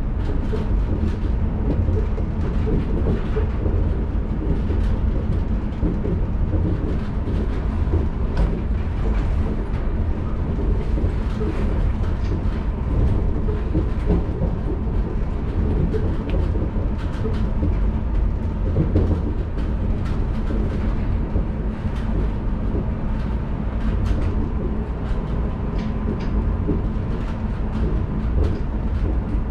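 Running noise of a 1993 Mitsubishi 1000 Series suspended monorail car under way: a steady, dense low rumble from the rubber-tyred bogies travelling inside the overhead track beam, with a faint steady hum and scattered light clicks and knocks.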